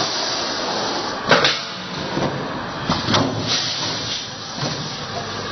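Electronic weighing-and-bagging machine for seed running with a steady noise, broken by short sharp bursts of hiss about a second in and twice around three seconds in.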